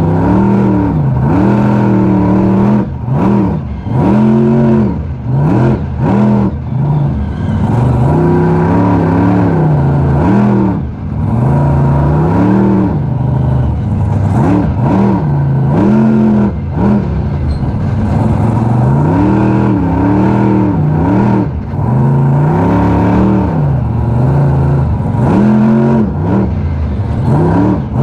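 Raminator monster truck's engine heard from inside the cab, revving up and falling back again and again as the throttle is worked, with brief lifts off the throttle between pulls.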